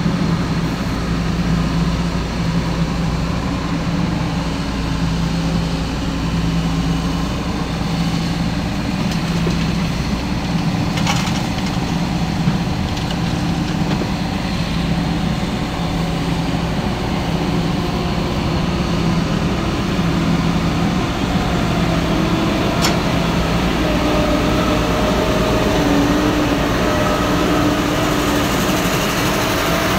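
Excavator's diesel engine running steadily for the whole stretch, joined about two-thirds of the way in by a whine that wavers up and down in pitch as the machine works. Two short clicks come through, one a little over a third of the way in and one near three-quarters.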